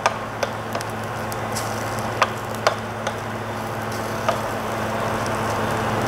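Food frying in a stainless steel pot while a wooden spatula stirs it, a steady sizzle with a low hum under it. The spatula knocks against the pot several times.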